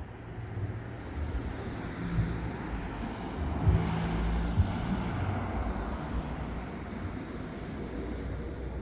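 A vehicle passing by, its noise swelling to a peak about four seconds in and then fading, with a faint high whine near the middle.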